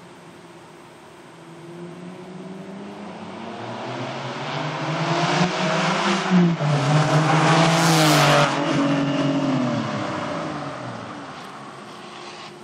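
Porsche 996 GT3's flat-six, running with its mufflers bypassed, accelerating hard as it comes closer. Its pitch climbs, drops once in an upshift about six seconds in, then falls away as the car passes and fades.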